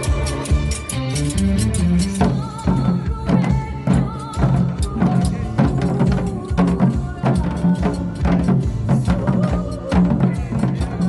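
Janggu, the Korean hourglass drum, played in quick rhythmic strokes over music with a bass line that shifts about two seconds in.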